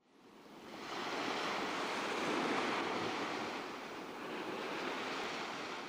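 Ocean waves washing: a steady rush of surf that fades in over the first second, then swells and ebbs gently.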